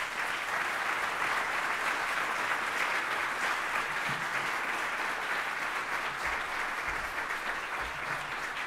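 Audience applauding in a conference hall, a steady dense clapping that eases slightly near the end, at the close of a speech.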